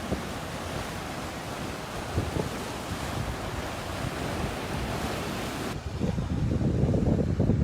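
Sea surf washing steadily on the shore, with wind buffeting the microphone. The wind rumble gets heavier in the last two seconds.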